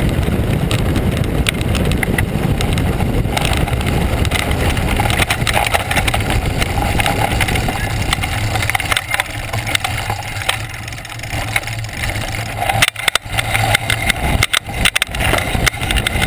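Mountain bike rolling fast downhill on a loose gravel and stone track: tyres crunching over stones and the bike clattering, under heavy wind rush on the action camera's microphone. A few sharper knocks near the end as the bike hits rougher ground.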